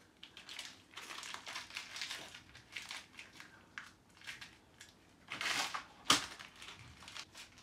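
Paper crinkling and rustling in a small child's hands, in irregular scrunches, with a louder rustle and a sharp knock about five to six seconds in.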